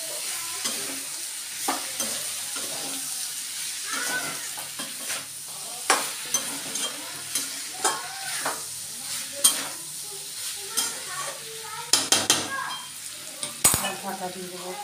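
A spatula stirring vegetables in a metal kadai, with frequent sharp scrapes and clicks against the pan over a steady frying sizzle.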